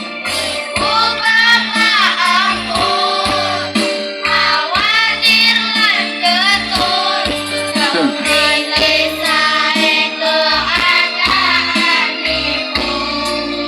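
A choir of young schoolgirls singing together in phrases with vibrato, over instrumental backing with a pulsing bass line.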